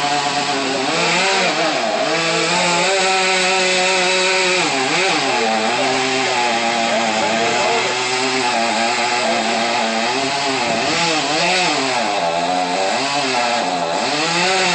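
Chainsaw running at high revs, its pitch dipping and recovering several times as it bites into the wood.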